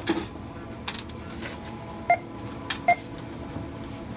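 Supermarket checkout barcode scanner beeping twice, about a second apart, as items are scanned, with a few light knocks of goods being handled on the counter.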